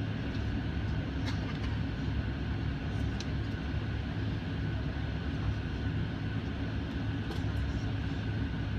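Steady low cabin rumble of a Boeing airliner taxiing, its jet engines at low power, with a faint steady whine above the rumble.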